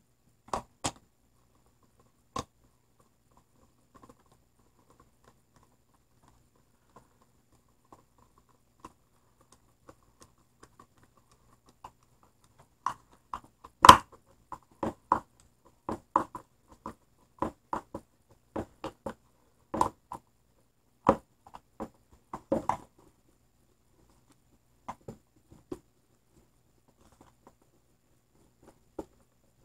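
Screwdriver driving the screw that holds a plastic plug housing closed: scattered, irregular sharp clicks of the tool and housing. The clicks come thickest through the middle, the loudest about halfway, with only a few isolated clicks before and after.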